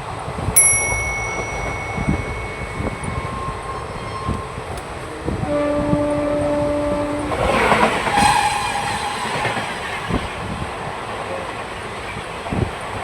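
Indian Railways ICF passenger coaches running over rail joints with a steady clickety-clack. A high train horn tone sounds about half a second in for about three seconds, and a lower horn blast follows around five to seven seconds in. A short, loud rush of noise comes right after the lower blast.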